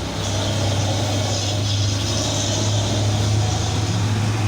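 Vehicle engines running steadily, a constant deep hum with a hiss of traffic over it.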